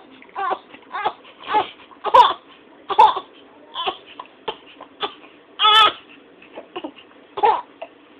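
A three-month-old baby fussing in short, broken cries: about a dozen brief wails, with one longer cry about six seconds in.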